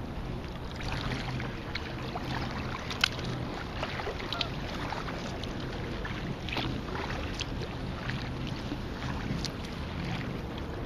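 Kayak paddle strokes: water splashing and dripping off the blades in small, irregular splashes, over a steady low hum.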